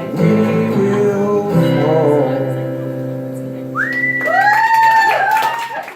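Acoustic guitar's final chord ringing out at the close of a live folk song. About four seconds in, the audience cheers with high rising-and-falling whoops and whistles, and the sound cuts off suddenly at the end.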